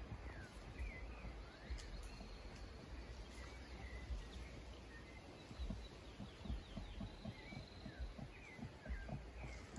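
Forest ambience: scattered short bird chirps and gliding whistles over a low, uneven rumble.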